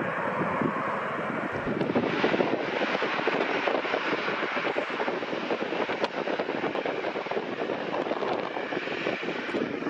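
Boeing 737 Business Jet's twin CFM56 turbofan engines running at takeoff power, a loud, steady, rough rumble.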